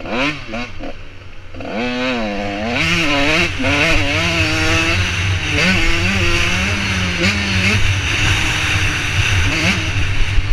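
85cc two-stroke motocross bike engine at race pace. It is choppy at first, then revs up about two seconds in, climbing and dropping in pitch several times through the gears, with a few seconds of steady pitch in the middle.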